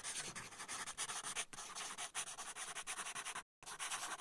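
Pen nib scratching quickly across paper in a rapid run of short strokes, the sound of lines being sketched, with a brief break about three and a half seconds in.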